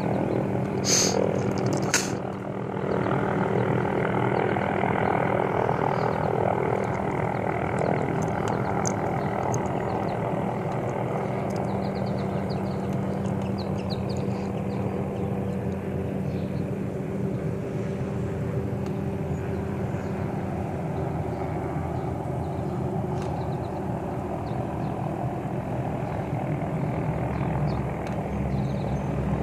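Helicopter hovering overhead, a steady drone. There are two sharp clicks about one and two seconds in, and a road vehicle passes near the end.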